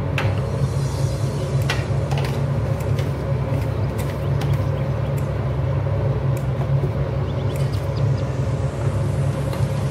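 Steady low rumble from the running gas stove and kitchen, with a few light clicks in the first half.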